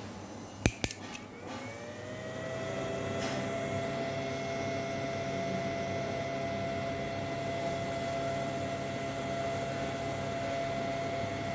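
A switch clicks on the electric fishing-machine inverter, and its cooling fan spins up with a rising whine that settles into a steady whir.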